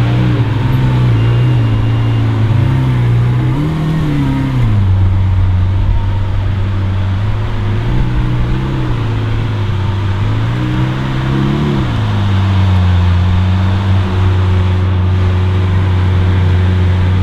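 Lamborghini Aventador SVJ's 6.5-litre V12 idling, with revs rising and falling gently several times in the first twelve seconds before settling back to a steady idle.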